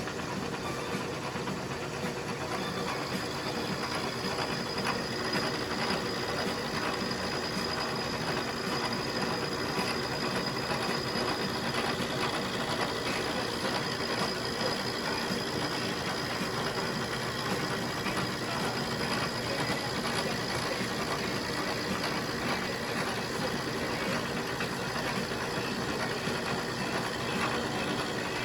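Milling machine running with a cutter taking metal off a small cast part held in a machine vise: a steady machine noise with a thin high whine that sets in a few seconds in.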